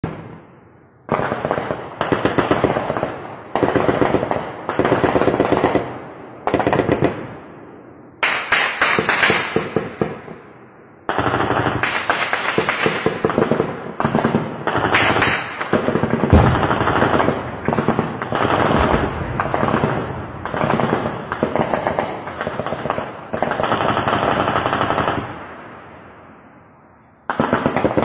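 Repeated bursts of automatic gunfire, each a second or two of rapid shots ending in a fading echo. In the middle stretch the bursts run into one another.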